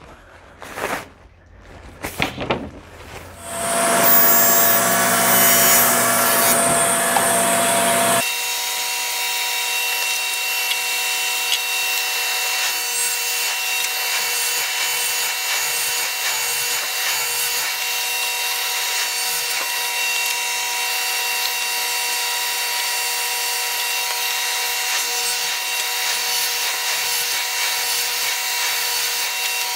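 Paper wrapping rustling as a length of frame molding is unwrapped, followed by a louder noisy stretch and then a steady machine whine and hiss, with several fixed high tones, that sets in suddenly and runs on unchanged.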